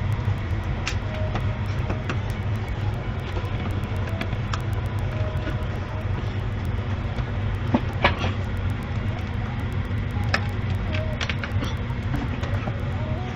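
Scattered light metallic clicks and clinks of hand tools and engine parts being handled in an engine bay, over a steady low hum. Two clicks come close together a little past halfway, and a few more near the end.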